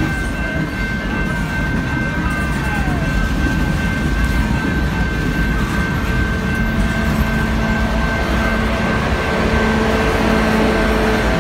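Boxcars of a passing train rolling by close up: a steady rumble of wheels on the rails, with a thin, steady high tone held over it.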